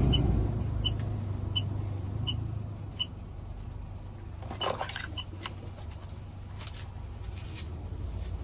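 A short, high electronic beep repeats about every two-thirds of a second and stops about five seconds in, over a low steady hum. Near the middle there is a brief clatter of small parts being handled.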